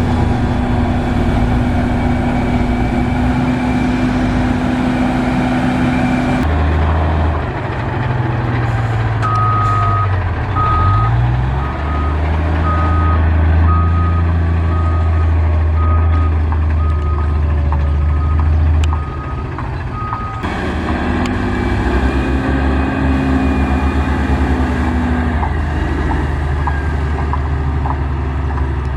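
Heavy diesel construction machinery running, its engine sound changing abruptly twice. In the middle a reversing alarm beeps steadily, a little over once a second, for about ten seconds as a machine backs up.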